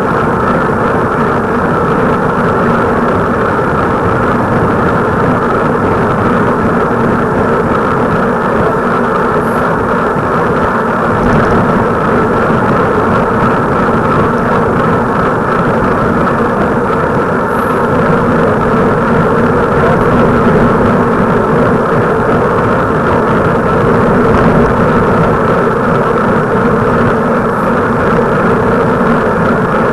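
Steady rushing road and wind noise of travel on the move, with a constant low hum running under it.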